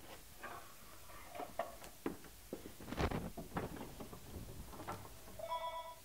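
Wooden and metal clunks and knocks from handling a boot-maker's crimp break, the loudest thump about three seconds in. Near the end a short steady ringing tone sounds for about half a second.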